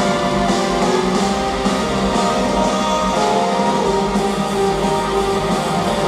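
Live rock band playing an instrumental passage led by guitar over a steady drum beat, with no vocals.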